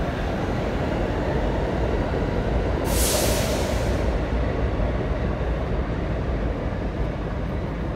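New York City Subway A train of R46 cars pulling out of the station: a steady rumble of wheels on rail with a faint whine from the traction motors, easing slightly near the end. A burst of air hiss about three seconds in.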